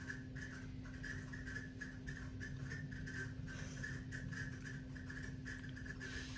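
Steady low hum with a faint pulsing higher tone throughout. About six seconds in, a hiss of noodles being slurped joins it.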